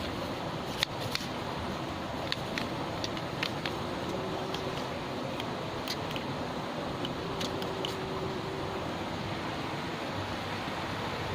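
Steady outdoor background noise with a dozen or so light, sharp clicks scattered through it.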